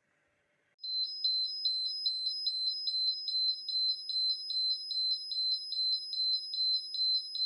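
Fire alarm sounder going off about a second in: a loud, high electronic beep pulsing rapidly and evenly. The system is in fire-alarm mode during testing.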